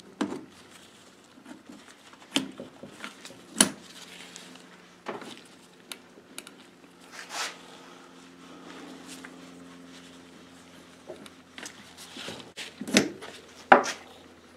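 Scattered metal clicks and knocks as a Model A starter drive's pinion and coil spring are handled and slid onto the starter's armature shaft, with glove rustle. The loudest knocks are two close together near the end, as the drive goes back onto the shaft.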